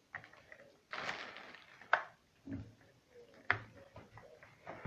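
Handling noise from a network cable and a plastic handheld cable tester: a rustling scrape about a second in, then sharp plastic clicks, the loudest about two and three and a half seconds in.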